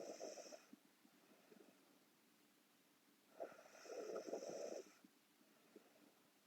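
A sleeping woman snoring, one snore about every four seconds: the tail of one fades out within the first second, and a full snore comes about three and a half seconds in, lasting about a second and a half.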